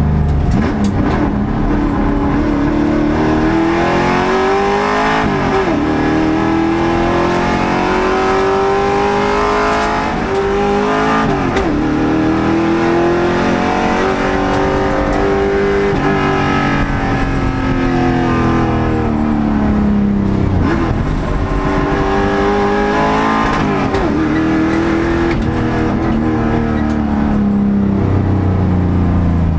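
Race car engine heard from inside the cockpit, running hard on track. Its pitch climbs under acceleration, breaks sharply at gear changes, and falls away as the car slows for corners, several times over.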